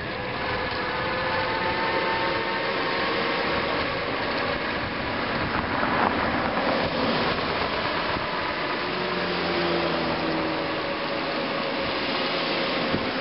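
Wind and road noise from a bicycle riding along at speed, with a steady whine that drifts slightly in pitch from the 250-watt geared electric hub motor in the front wheel.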